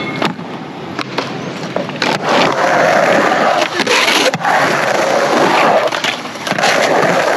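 Skateboard wheels rolling loudly over a concrete ramp, with sharp clacks of the board hitting the ground a few times in the first couple of seconds and once more about four seconds in.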